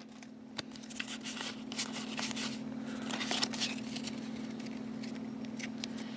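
Faint rustling and soft clicks as Pokémon trading cards in a freshly opened pack are slid against one another and moved from front to back of the stack, over a steady low hum.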